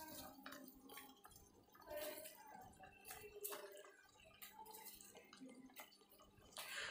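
Faint crackling and soft plops from a wok as pieces of deep-fried chicken are dropped into hot sauce and vegetables, scattered small ticks throughout.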